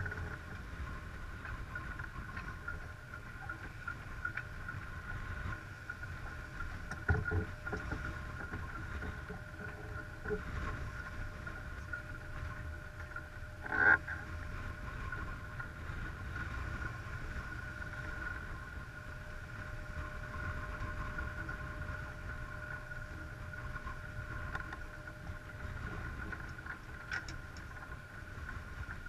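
Sailing yacht under way, with a steady low rush of water along the hull and wind on a deck-mounted microphone. A faint steady whine runs underneath. There is a sharp knock about 14 seconds in and a smaller clatter around 7 seconds.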